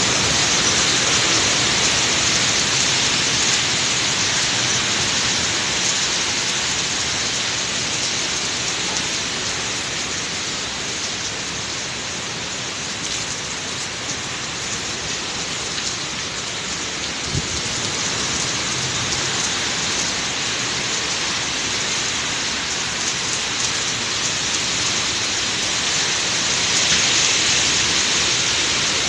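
Super-typhoon wind and driving rain: a steady, loud hiss of heavy rain in the wind. It is strongest at the start, eases slightly midway, and swells again near the end.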